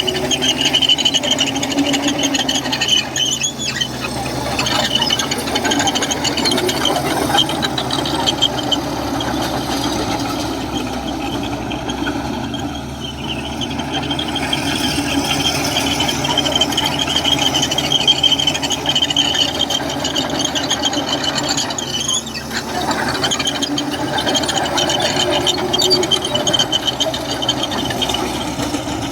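Komatsu bulldozer working, its engine running steadily under a continuous high-pitched squeal that wavers in level throughout.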